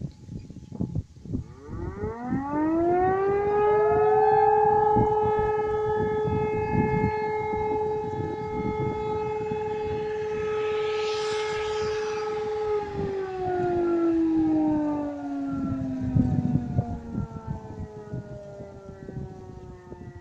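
Fire brigade alarm siren sounding a test alarm: its wail rises over a few seconds, holds one steady note for about nine seconds, then slowly winds down.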